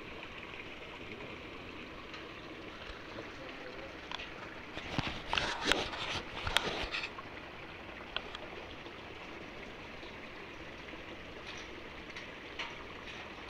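Water running and trickling steadily into a grated concrete trout pool. About five to seven seconds in comes a brief cluster of sharp clicks and knocks.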